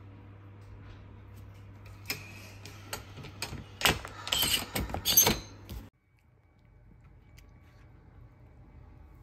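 Wire door and plastic latch of a pet carrier being worked by hand: a run of sharp clicks and metal rattles over a few seconds. It stops abruptly about six seconds in, leaving quiet room tone.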